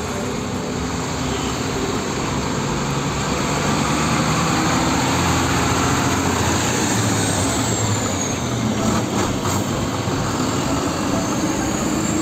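Diesel engine of a Sinotruk HOWO concrete mixer truck running as the truck drives slowly past along a street, with road traffic noise. It grows louder toward the middle as the truck comes closest.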